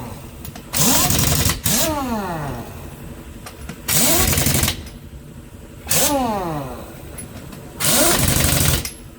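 Pneumatic impact wrench (air gun) run in five bursts of hammering, each with a whine that rises as the air motor spins up and falls as it spins down after the trigger is released.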